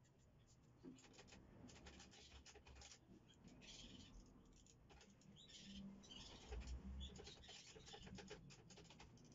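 Faint, irregular metallic clicks and scrapes of a wrench working the valve-clearance adjusters on the motorcycle's rocker arms.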